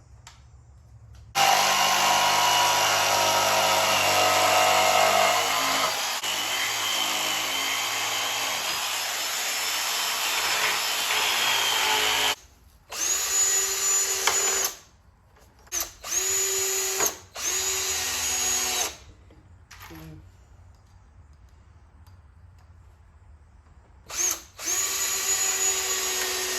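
Power drill running: one long run of about ten seconds whose pitch shifts as it works, then three short bursts of a second or two, and another starting near the end.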